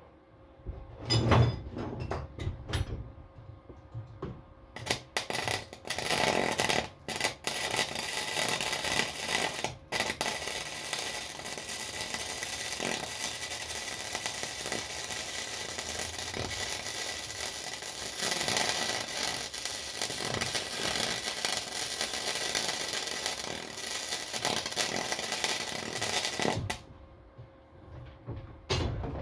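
Flux-core wire-feed welding arc crackling: a few short bursts at first, then one continuous bead of about sixteen seconds that stops suddenly near the end.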